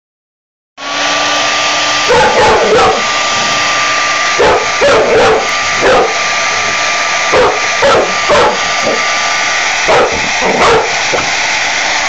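Handheld hair dryer switched on a moment in and blowing steadily with a thin whine, while a dog barks at it again and again in short bursts of two or three barks.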